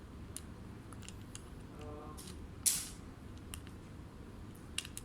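A few light clicks and one short, sharp scrape about two and a half seconds in, from small hardware being handled on a workbench.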